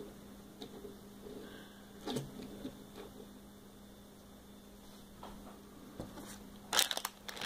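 Low steady electrical hum with a few faint taps, then near the end a burst of loud crinkling as a blind-bag packet is grabbed from the basket.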